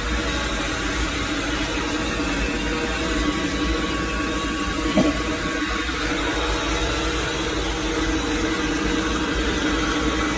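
Steady machine-like hum with a hiss, with one brief click about five seconds in.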